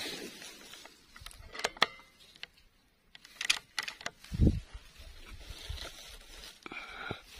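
Handling noise from a scoped air rifle being moved and re-aimed: scattered light clicks and knocks, and one low thump about four and a half seconds in. A brief higher-pitched sound comes near the end.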